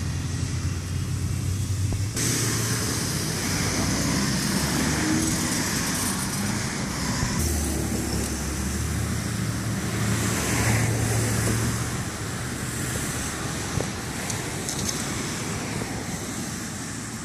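Road traffic: steady engine and tyre noise from passing vehicles, with low engine hum that shifts as different vehicles go by.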